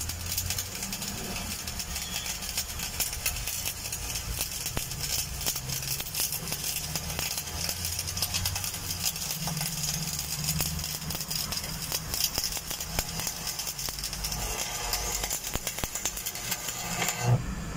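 Electric arc welding a steel pipe elbow to a flange: the arc crackles and spits steadily, with a low hum underneath.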